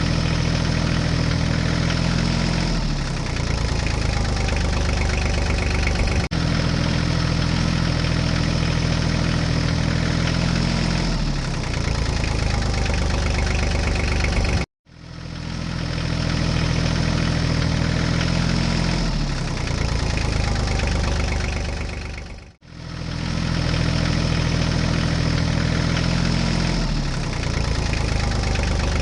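Tractor engine idling steadily, with a brief dip in pitch about every eight seconds, as if the same stretch repeats in a loop. It cuts off abruptly twice, about halfway through and about three-quarters of the way through, then resumes.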